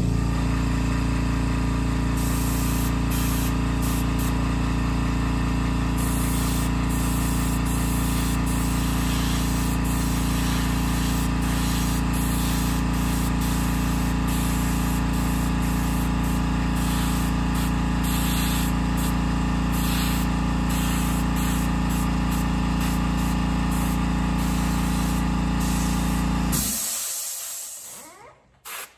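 Small airbrush compressor motor running with a steady hum that switches on suddenly and cuts off a couple of seconds before the end. The hiss of the airbrush spraying paint comes and goes in short spurts over it.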